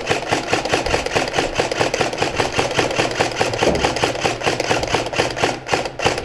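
Airsoft high-capacity magazine being wound: a long, loud run of rapid ratcheting clicks, about ten a second.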